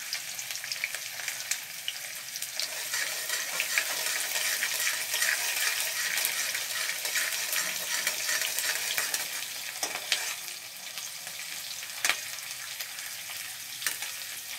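Chopped small onions and mustard seeds sizzling in sesame oil in an aluminium kadai as they fry toward golden brown, stirred with a steel spatula. The sizzle is steady, a little quieter in the second half, with a few sharp knocks of the spatula against the pan.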